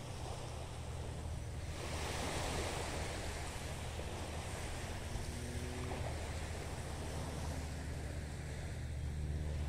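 Steady wash of small waves on a sandy lagoon beach, with wind rumbling on the microphone.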